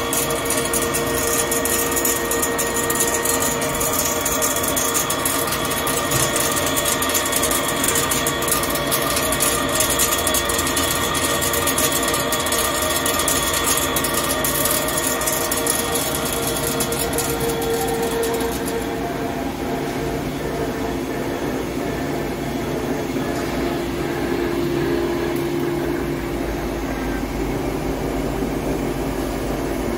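Hankook heavy-duty CNC lathe turning a steel shaft: a steady machine hum of several tones over the gritty high hiss of the cut. A little past halfway the cutting hiss drops away, and the machine runs on with a new, lower steady tone.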